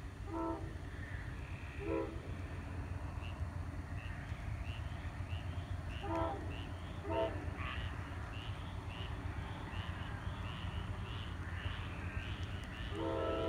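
Locomotive air horn of an approaching, still unseen train sounding in the distance: four short blasts in the first half, then a long, louder blast beginning near the end. A steady low rumble lies underneath.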